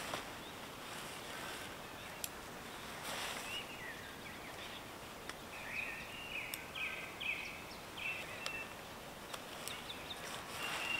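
Birds calling in a run of short, high chirps through the middle stretch, over a steady outdoor background hiss. A single sharp click comes a couple of seconds in.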